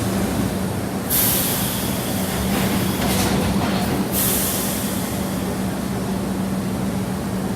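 Subway train running, a steady rumble with a low hum, broken by loud hissing rushes about a second in, and again around three and four seconds in.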